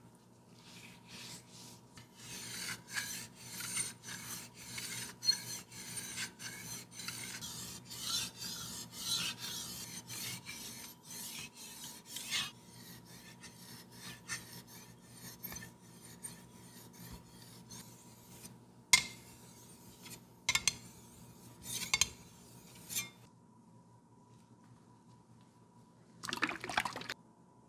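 Steel blade of a traditional Korean Joseon sickle being stroked back and forth on a wet combination water whetstone (#3000/#8000), a rasping scrape about twice a second. The strokes stop about two-thirds of the way through, followed by a few separate short scrapes and a brief noise near the end.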